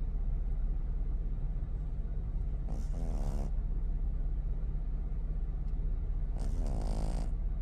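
Pug puppy snoring in its sleep: two rasping snores about three and a half seconds apart, one near the middle and one near the end, over a steady low hum.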